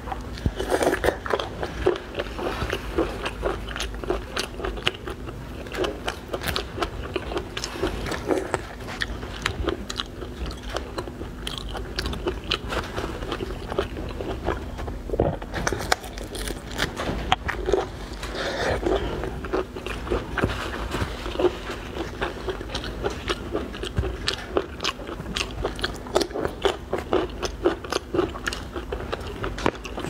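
Close-miked eating of a marinated whole prawn: biting and crunching through the shell and chewing, with a steady run of small wet crackles and clicks.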